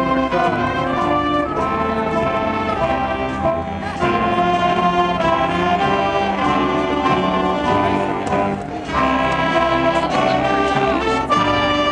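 Live school band playing processional music, with brass instruments leading in held, stately notes.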